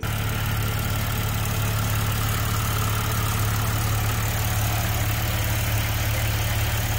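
Audi supercharged 3.0T V6 engine idling steadily, with an even low hum.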